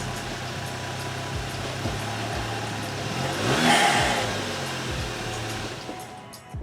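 A car's engine running as it drives past, loudest as it goes by about three and a half seconds in, then fading away.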